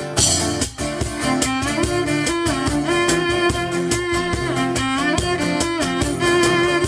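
Live acoustic band playing an instrumental break: strummed acoustic guitars under a bowed string melody line.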